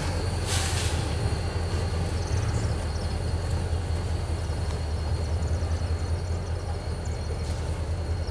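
A freight train's last cars rolling away over the rails: a steady low rumble, with a short hiss about half a second in.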